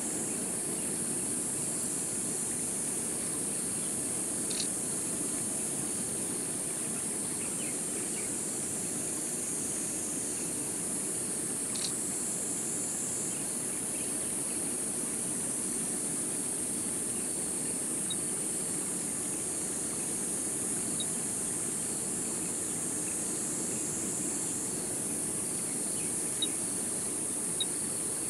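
Steady high-pitched insect chorus with a low, even rushing noise underneath, and a few brief faint chirps.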